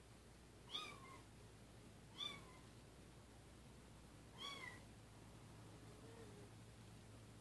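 Month-old ginger kitten mewing: three short, high mews, each dipping slightly in pitch at the end.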